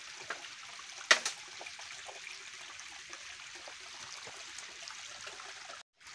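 Thin stream of water trickling down a bare rock face, a steady hiss, with a few sharp knocks of footsteps on the rock, the loudest about a second in. The sound cuts out briefly near the end.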